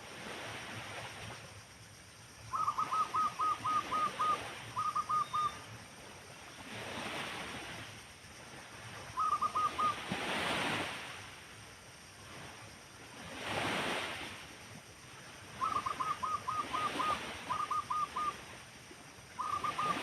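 Zebra dove (perkutut) calling: four phrases of quick, clipped, evenly spaced notes, the longer ones running about seven notes and then three or four. Behind them, gusts of wind swell and fade every few seconds.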